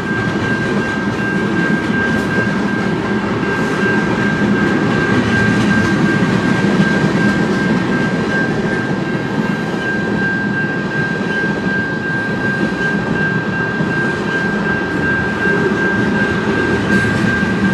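Cars of a long mixed freight train rolling past on the rails, a steady rumble and clatter of wheels as the train picks up speed. A steady high ringing tone sounds over it throughout.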